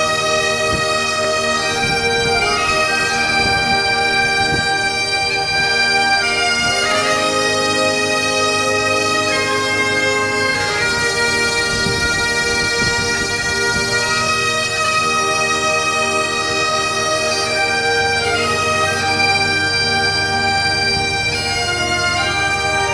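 Bagpipe music: a tune of held notes that change every second or so.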